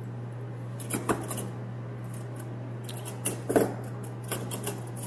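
Stainless steel surgical scissors and clamps clicking and clinking against each other as they are handled on an instrument stringer. There are a few light metallic clicks about a second in, the loudest ones around three and a half seconds, and a few more near the end, over a steady low hum.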